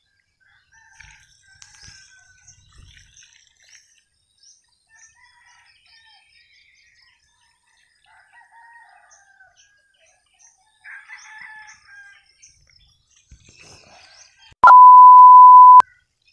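Birds chirping faintly with roosters crowing across an open farm field in the early morning. Near the end a loud, steady, single-pitched electronic beep lasts about a second and cuts off sharply.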